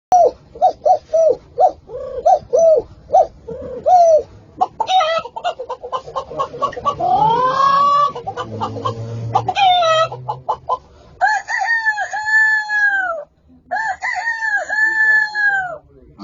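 A man imitating a chicken and a rooster: a quick run of clucks, then two long crows near the end.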